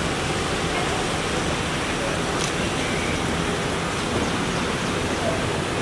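Steady rushing outdoor background noise, with faint voices now and then and a single short click about two and a half seconds in.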